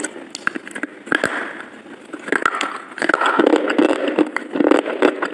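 Close-miked chewing and wet mouth sounds of someone eating soft cream cake: many small clicks and smacks, louder from about three seconds in.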